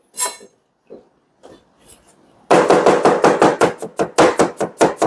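Chinese cleaver chopping an onion on a cutting board: a few single cuts, then from about two and a half seconds in a fast run of chops, about six a second.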